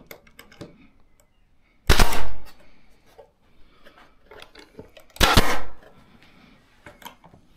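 Nail gun firing two nails into wood, about three seconds apart. The two shots are the loudest sounds, with faint handling noise between them.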